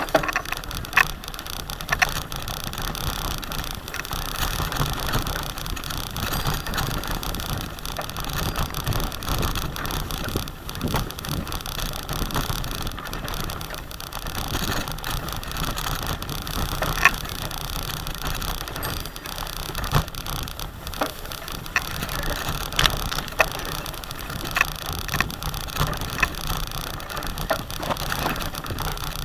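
Bicycle ridden along a rough track through tall dry grass: a steady rustling noise with scattered clicks and rattles from the bike.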